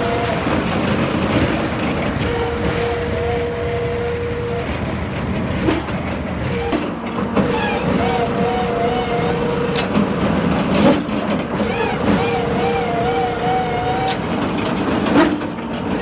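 Piling machine running steadily, with a whine that comes and goes, a wavering higher tone, and a few sharp knocks.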